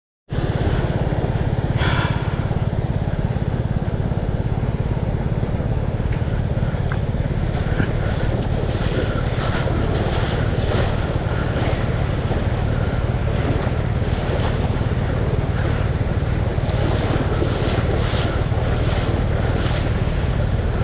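Fast creek water rushing and churning over rocks in a steady, loud wash, with wind buffeting the microphone.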